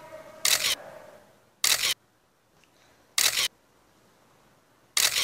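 Smartphone camera shutter sound, four short clicks about a second and a half apart, one for each selfie taken.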